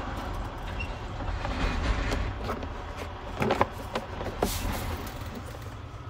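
A plastic steering column cover being handled and fitted back into place, giving a few sharp knocks and clicks around the middle, over a steady low rumble.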